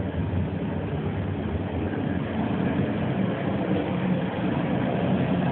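Commercial chicken fryer's oil-filtration pump motor running with a steady hum.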